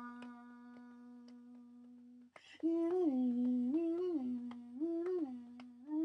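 A single voice holds one long sung note that fades away. About two and a half seconds in, it starts a wordless hummed melody that steps up and down between two notes. Faint ticks run throughout.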